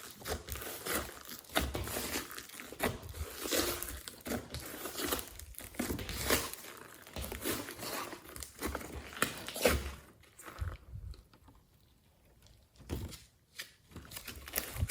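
Slime being squished and kneaded by hand, giving irregular wet crackles, pops and crunchy squishes. There is a short quieter lull a little after the middle.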